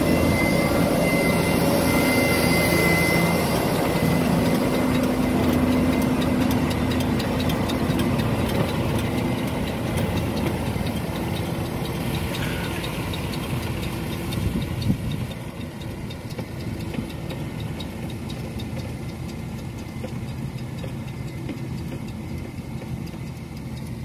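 Fendt 718 tractor's six-cylinder diesel engine running steadily while pulling a McHale round baler. It is loudest at first and grows fainter after about 15 seconds, when there is one short, sharp louder sound.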